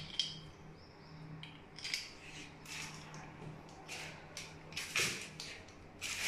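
Irregular short clicks and scrapes of small hard objects, such as tools and fittings, being handled, with the strongest about five seconds in and at the end, over a faint steady low hum.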